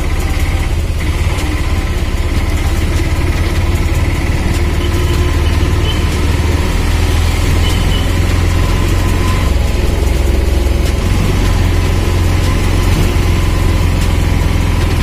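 Engine and road noise from inside a moving vehicle: a steady low rumble at an even level.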